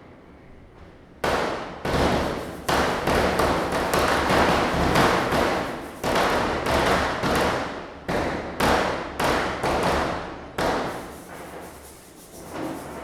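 Diwali firecrackers bursting in a rapid run of sharp bangs, each with an echoing tail. They start about a second in, come thickest in the middle and thin out near the end.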